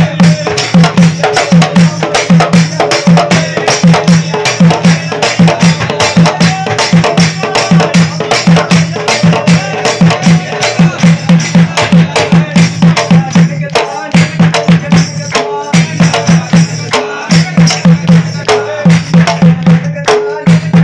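Devotional bhajan music: a skin drum beaten with a stick in a fast steady rhythm, about two to three strokes a second, with a jingle tambourine shaken along, hand clapping and men's voices singing.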